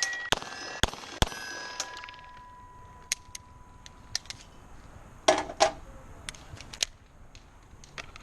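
Pistol shots on a steel-target stage. Three shots about a second in, each followed by the clang of a hit steel plate, whose ringing tones fade over a couple of seconds. Fainter sharp cracks follow, then two loud shots about five seconds in.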